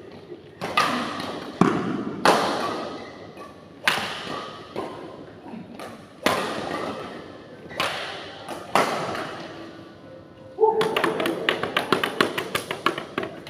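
Badminton rackets striking a shuttlecock in a doubles rally: about seven sharp hits, one to one and a half seconds apart, each echoing in a large hall. About three seconds from the end, a quick flurry of sharp taps follows.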